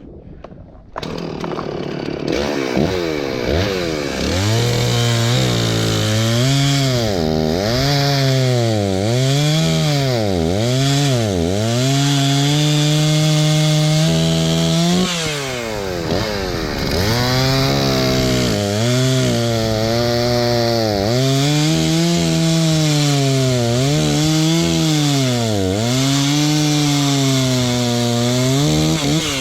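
Stihl chainsaw at full throttle, cutting wood. Its engine note sags and recovers over and over as the chain bites in, holds steady for a few seconds near the middle, and drops away near the end.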